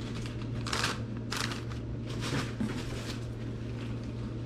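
Several short crinkles of packaged food pouches being handled and set down, over a steady low hum.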